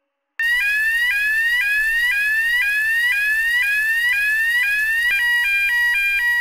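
Electronic alarm siren, starting suddenly: a rising whoop repeated about twice a second, then switching about five seconds in to a rapid two-tone high-low alternation.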